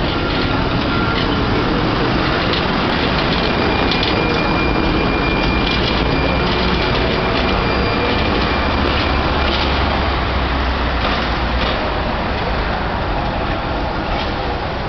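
Vintage Trieste–Opicina tramcar rolling past on its street rails and drawing away, its wheels rumbling, over steady city traffic noise. About three seconds in, a thin high squeal sounds for several seconds.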